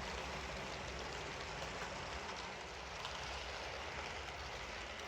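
HO-scale model train running on its track: a faint, steady rolling noise with a low hum and a few light ticks.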